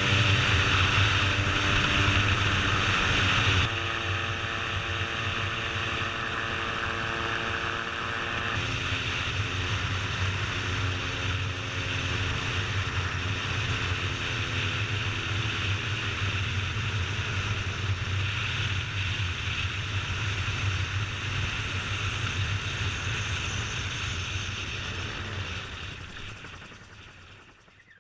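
Gyroplane engine and pusher propeller running steadily, with wind rushing over the open cockpit. About four seconds in the level drops suddenly, and the engine's pitch then sinks slowly as power comes off on the descent to the runway; the sound fades out near the end.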